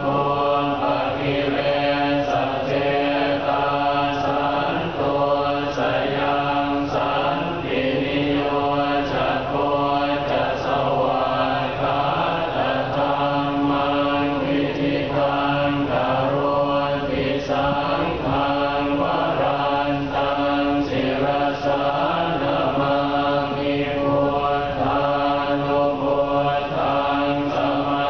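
Buddhist prayers chanted by a group of voices in unison. The chant holds one steady reciting pitch, with syllables in an even rhythm and no break.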